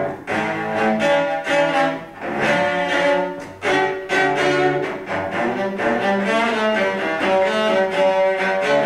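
Solo cello played with the bow, a rhythmic line of short, frequently changing notes.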